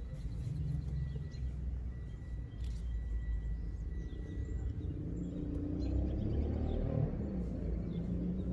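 Outdoor ambience: a steady low rumble with faint bird chirps.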